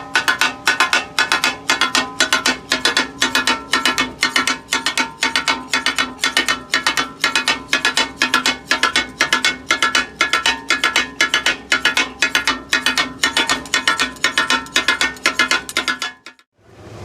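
Steel spatulas clattering on a flat iron tawa griddle in the fast, steady 'takatak' rhythm of chopping and mixing brain masala, each strike ringing the metal; the rhythm stops abruptly near the end.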